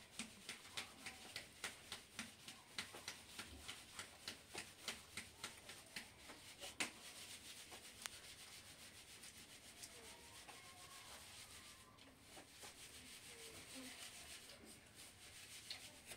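Flour being sifted through a round wooden drum sieve shaken back and forth: faint rhythmic rustling strokes, about three a second, that give way about six seconds in to a steady soft hiss.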